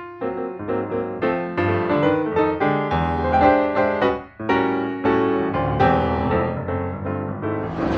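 Background piano music: a quick run of struck notes, with a short break about four seconds in.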